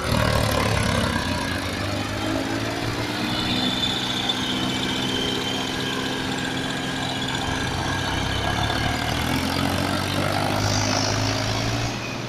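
Massey Ferguson 245 tractor's three-cylinder diesel engine running under heavy load as it drags a fully loaded trolley through soft dirt. The engine note rises over the first couple of seconds, then holds steady.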